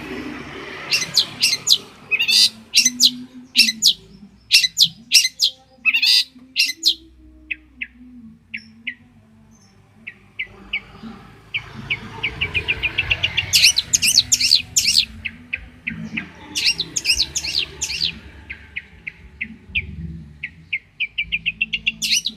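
Long-tailed shrike (cendet) singing: loud, sharp, chattering high notes in quick bursts, thinning out to scattered softer notes partway through, then rapid trilled runs picking up again.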